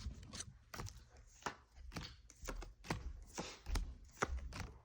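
Trading cards and card-pack packaging being handled: a run of irregular sharp clicks and taps, two or three a second.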